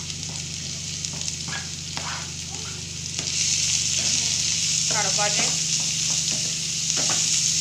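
Freshly added sliced onions sizzling in hot oil in a steel kadai while a wooden spoon stirs them, with short scrapes of the spoon. The sizzle grows louder about three seconds in, over a steady low hum.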